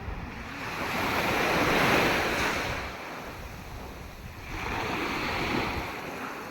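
Sea waves surging in, swelling twice, loudest about two seconds in and again about five seconds in, with wind rumbling on the microphone.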